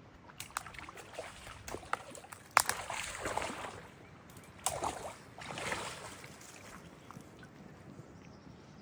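Water sloshing and small splashes, with scattered sharp clicks and one louder knock about two and a half seconds in, fading after about six seconds.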